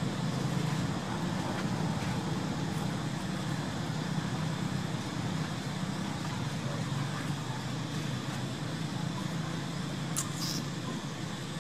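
A steady low rumble of background noise, with two brief high-pitched squeaks about ten seconds in.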